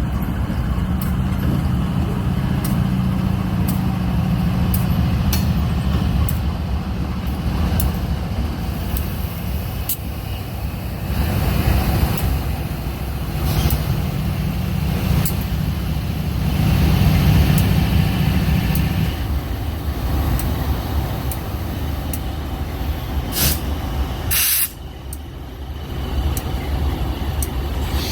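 GE B39-8E diesel locomotives running, the engine note swelling twice, with scattered clicks and two short hisses of air about three-quarters of the way through.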